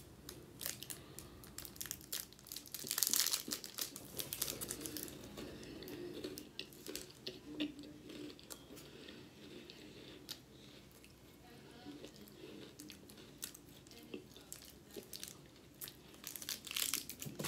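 A plastic snack wrapper crinkling and tearing as it is bitten open, loudest about three seconds in, then soft chewing and crunching of the snack, with more wrapper rustling near the end.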